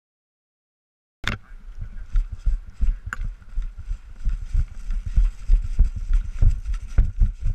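Silence for about a second, then a sudden start into irregular low thumps, several a second, with clicks and rustling: handling and movement noise close to the microphone.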